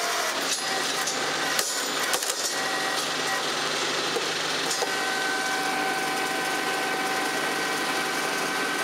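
Tractor-powered vertical hydraulic log splitter running, with sharp cracks and knocks of a log splitting and pieces falling in the first two seconds or so. About five seconds in, a steady whine joins the machine's running noise.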